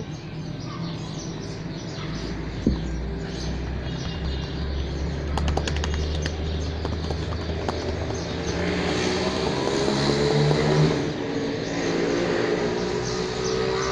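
A motor vehicle's engine running, with a low hum early on and then growing louder with a rising pitch in the second half as it goes by, with a few faint bird chirps.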